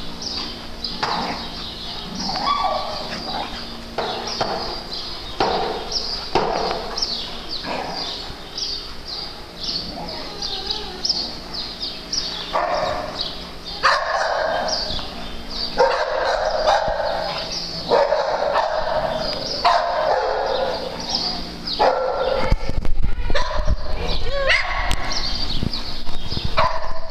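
Several dogs barking and yipping over and over, with a busier, louder stretch of barking about halfway through.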